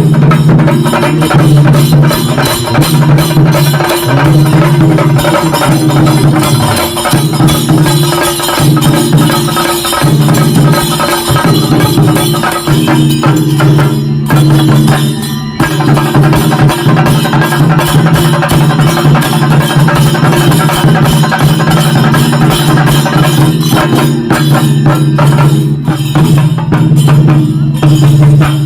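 Chenda melam: chenda drums beaten in a fast, dense rhythm with clashing cymbals over a steady low tone, dropping back briefly about halfway through.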